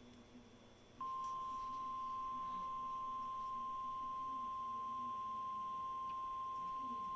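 NOAA Weather Radio warning alarm: a single steady electronic tone that comes on abruptly about a second in and holds unbroken, after a brief quiet gap. It is the alert signal before a severe thunderstorm warning is read.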